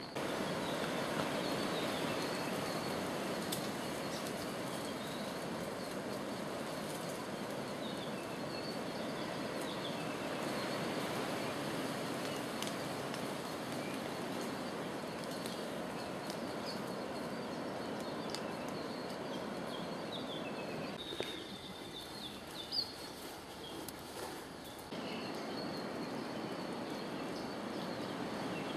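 Scattered short, high bird chirps over a steady rushing noise, which drops away for a few seconds about three quarters of the way through.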